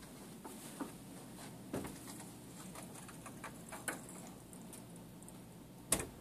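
Quiet indoor room tone with a few scattered light taps and clicks, and one sharper knock near the end.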